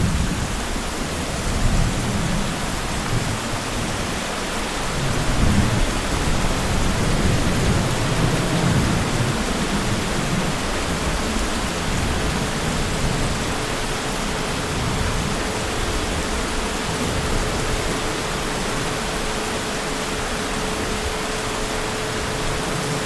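Heavy rain falling steadily, with low rolls of distant thunder that swell and fade, strongest a couple of seconds in and again from about five to nine seconds in. A faint steady hum comes in about halfway through.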